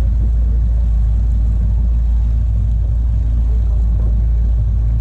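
Outboard motor on an inflatable boat running steadily under way.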